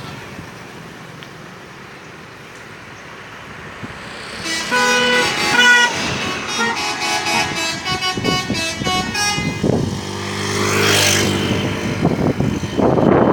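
Telolet horn on a bus: a multi-tone musical horn plays a quick tune of stepping notes for about five seconds, starting about four seconds in. After it, a louder rush of engine noise swells near the end.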